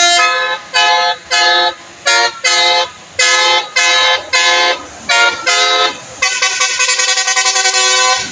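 Bus telolet horn, a multi-tone musical air horn, sounding loudly in a tune of short held notes that change pitch every fraction of a second with brief gaps between phrases. In the last two seconds it breaks into a fast stuttering trill.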